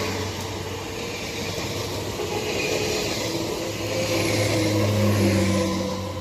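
Z 20500 (Z2N) double-deck RER electric train running past along the platform: steady rolling rumble and hiss of wheels on rail with a low electric hum, loudest as the last car nears, then fading as the rear cab goes by.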